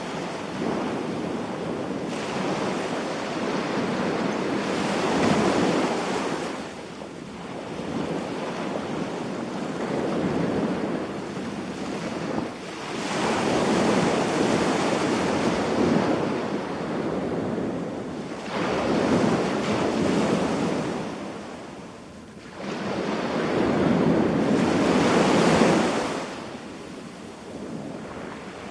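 Surf breaking and washing up on a sandy beach, the noise swelling and easing in repeated surges every few seconds.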